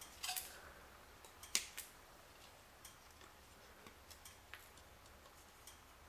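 Cable-tie tails being snipped off with small hand cutters: two sharp snips in the first couple of seconds, then fainter ticks of the tool and the plastic being handled.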